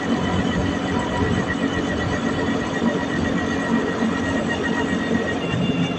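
Vespa PX scooter's two-stroke single-cylinder engine running, with a dense low rumble and a thin steady whine over it. The owner finds the engine sound suddenly strange.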